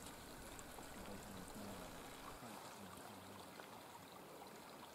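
Faint, steady outdoor background hiss, close to silence, with faint low wavering tones underneath.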